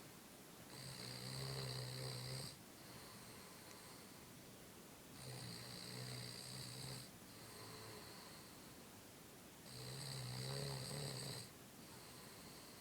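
A sleeping person snoring: three long, rattling snores, each nearly two seconds, coming about every four and a half seconds with quieter breaths between them.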